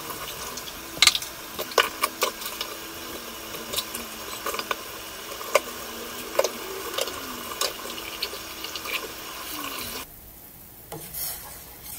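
A stainless steel stockpot of cucumber broth at a rolling boil: steady bubbling with frequent sharp pops and splashes. It drops quieter near the end.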